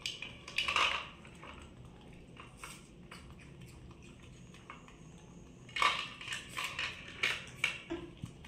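Plastic toys and toy fishing rods clattering and knocking against each other and a plastic basin. There are a few clicks near the start and a quick run of knocks about six seconds in.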